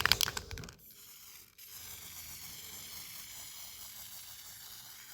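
Aerosol can of white paint: a short rattle in the first second, then a steady hiss of spraying for about four seconds. The can is a dud that does not spray properly.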